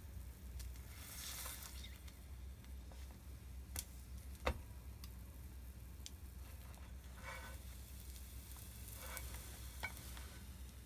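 Kirimochi frying in butter in a pan: a faint sizzle with short spells of louder hiss over a steady low hum, broken by a few sharp clicks, the loudest about four and a half seconds in.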